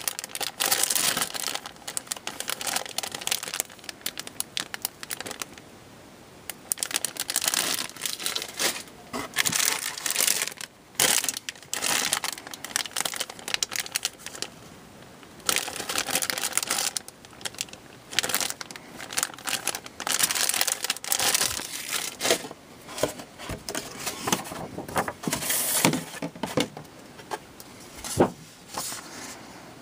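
Thin clear plastic bags around plastic model-kit runners crinkling as they are handled and turned over, in irregular bursts with short pauses. A sharp tap near the end.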